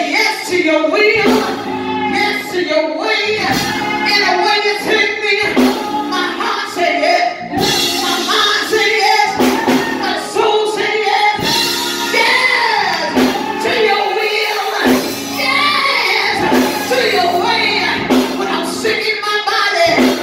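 A woman singing a gospel song through a microphone and PA system, with instrumental accompaniment underneath.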